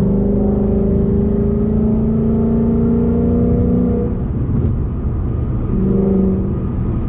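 Ford Mustang GT's 5.0-litre V8 through a Corsa Xtreme cat-back exhaust under hard acceleration: a loud exhaust note climbing slowly in pitch for about four seconds, breaking off, then pulling again briefly about six seconds in.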